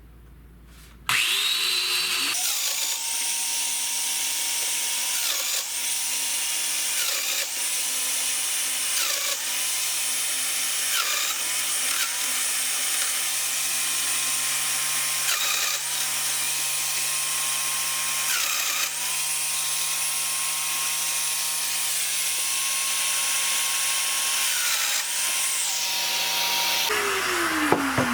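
Domino joiner running and cutting mortises in wood, its pitch shifting every couple of seconds as it works. Near the end the motor is switched off and winds down with a falling whine.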